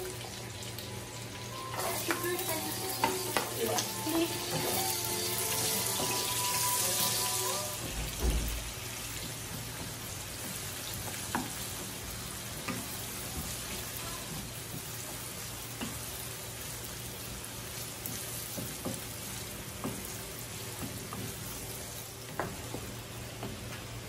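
Steady hiss with scattered light clicks and taps, louder for a few seconds in the first third, and a single low thump about eight seconds in.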